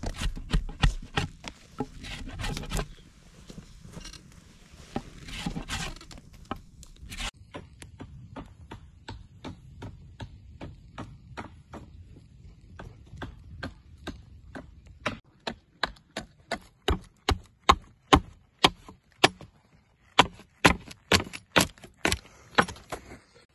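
Repeated sharp chopping strikes, irregular at first, then a steady run of about two or three blows a second through the second half.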